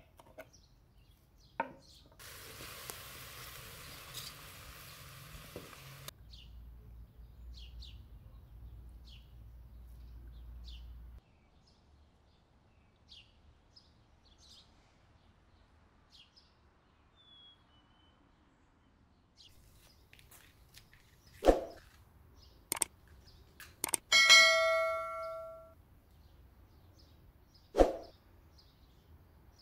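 Small birds chirping on and off. A knife cuts through butternut squash on a wooden block at the very start. Near the end come a few sharp knocks and one loud metallic clang that rings for about a second and a half.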